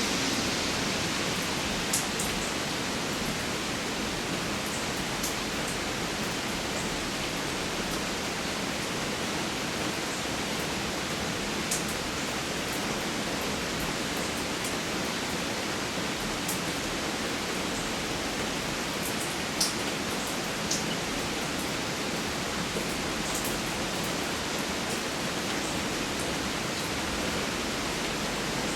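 Steady rain, an even hiss with a few sharp drips or ticks standing out now and then.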